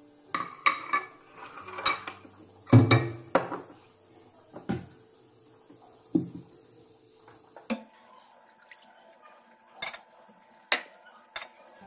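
Glass bowls and dishes clinking and knocking against a stone countertop as they are handled and set down. A quick run of knocks comes in the first four seconds, the loudest about three seconds in, then single clinks every second or two.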